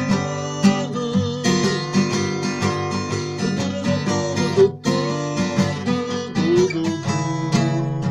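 Acoustic guitar strummed in steady rhythmic chords, an instrumental passage between sung lines of a slow song.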